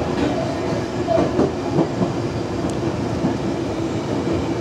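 Tokyo Metro 03 series chopper-control train running, heard from inside the car above the floor: wheel and rail rumble with a steady hum.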